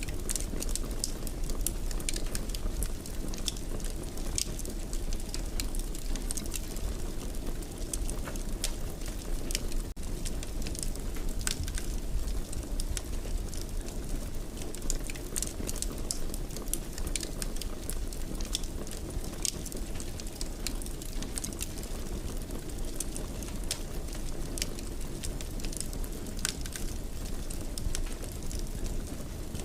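Wood fire in a fireplace crackling, with frequent sharp pops over a steady low rumble.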